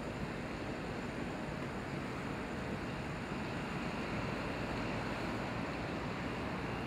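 Steady outdoor background noise, an even rushing hiss with no distinct events, like wind and surf.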